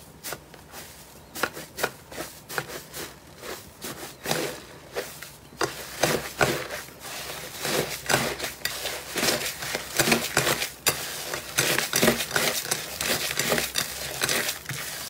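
Hands kneading and squeezing a crumbly, crumb-textured green slime, making a dense run of crackling, squishy pops and clicks that grow busier and louder about halfway through.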